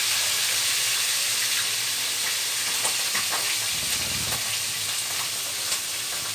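A whole yellowfin fish frying in hot oil in a pan: a steady sizzle with scattered small pops.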